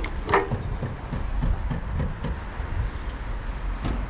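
Fuel filler cap on a Honda NSR50's tank being unlocked with its key and opened: a sharp click about a third of a second in, then small knocks and handling noises, over a steady low rumble.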